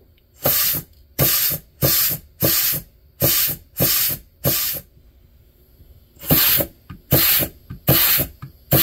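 Short blasts of compressed air from a blow nozzle into a 4L60E transmission's reverse clutch port, hissing in about seven quick bursts, a pause of about a second and a half, then four more. This is an air check: each blast applies the reverse clutch pack, and it applies as it should.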